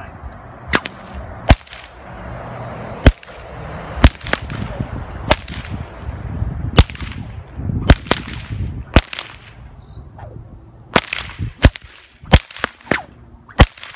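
A 4.5-foot 550 paracord stock whip being cracked over and over, well over a dozen sharp cracks at irregular intervals, some coming two or three in quick succession toward the end.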